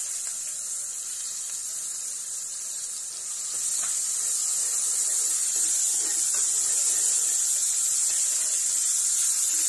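Finely chopped onion sizzling in hot oil in a kadhai, a steady hiss that grows louder about three and a half seconds in, with a few light scrapes of a steel ladle stirring it.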